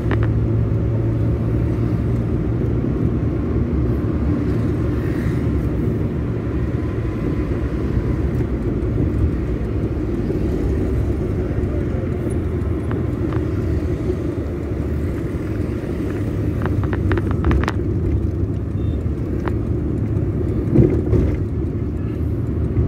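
Car driving on a city road: a steady low rumble of engine and tyres, with a few brief clicks about three-quarters of the way through.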